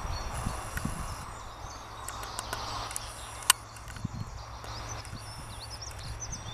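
Irish Rail 071 class diesel locomotive drawing a weedspray train slowly toward the camera, a low steady engine rumble. Birds chirp over it, mostly in the second half, with one sharp click about halfway through.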